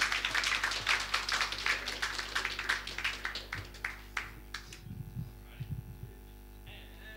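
Audience applauding, the clapping thinning out and dying away about four to five seconds in, leaving a steady low hum.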